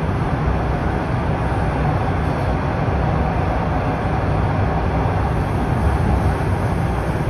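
Interior running noise of a Toronto Rocket subway car moving between stations: a steady low rumble of wheels on rail and traction equipment.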